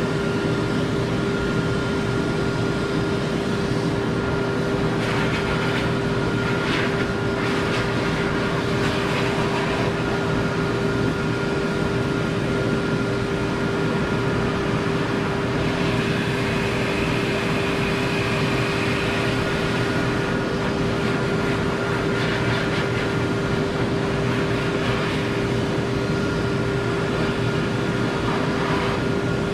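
Forced-air dog dryer blowing a puppy's coat dry through its hose, running steadily with a constant hum and a fainter higher whine over the rush of air.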